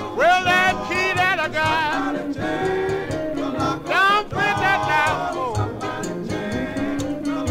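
1950s rhythm and blues vocal group record: a singer's voice sweeps up high twice, about a moment in and again halfway through, over group harmony and a band keeping a steady beat.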